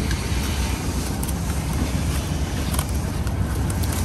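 Steady low rumble and hiss of market background noise, with a few faint clicks.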